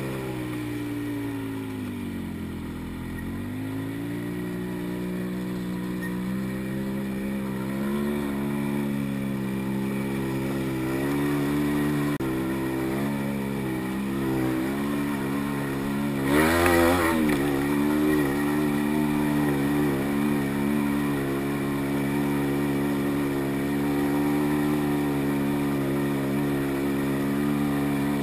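ATV engine running at low speed while crawling a rough trail, its pitch dipping a few seconds in and wavering with the throttle. About two-thirds through it rises in a brief rev with a burst of noise.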